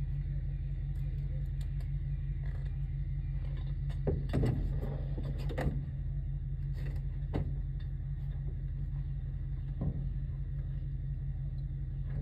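An engine running steadily with a low hum. A few sharp knocks and a brief clatter come about four to six seconds in, with single knocks later on.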